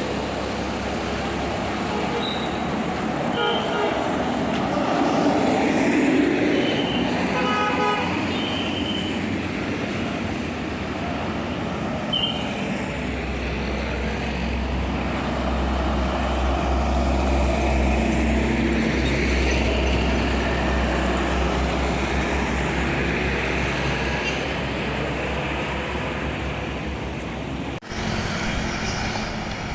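Buses driving past on a road amid traffic noise, with a few short horn toots. A steady low engine rumble comes in from about halfway through.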